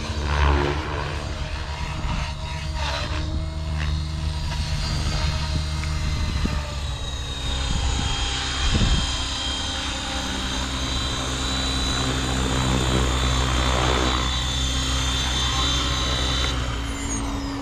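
Blade Fusion 550 electric R/C helicopter, with a brushless motor on a 6S lipo, running with a steady rotor and motor whine as it flies and sets down. The high whine cuts off suddenly about a second before the end, as the motor is throttled off.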